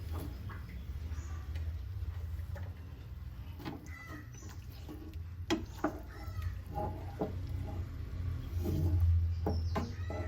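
Utensil knocks and stirring in a cooking pan, a few sharp clinks in the middle, over a steady low hum, with animal or bird calls in the background.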